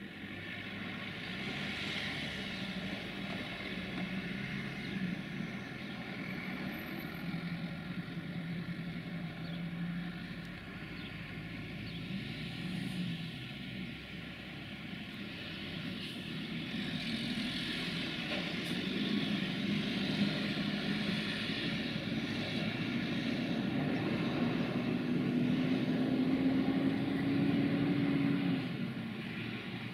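Electroputere 060-DA (LDE2100) diesel-electric locomotive with its Sulzer engine approaching, a steady engine drone that grows louder and climbs in pitch over the second half, then drops suddenly near the end as the throttle comes off.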